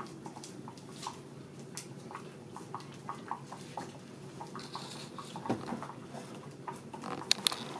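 Pot of okra soup boiling: a steady low bubbling with frequent small irregular pops, and a couple of sharper clicks near the end.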